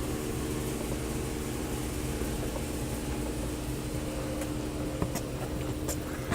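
A steady mechanical hum with a constant low tone, broken by a few light clicks near the end.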